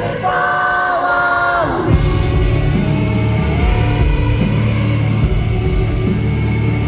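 Live rock band playing at a concert: a held, slightly bending sung note in the first two seconds, then the band carries on with heavy drums and bass and no lyrics. The crowd yells faintly over it.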